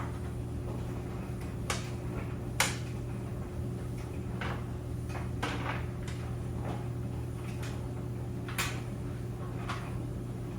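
Clothes dryer running with a steady low hum, with irregular clicks and knocks every second or two.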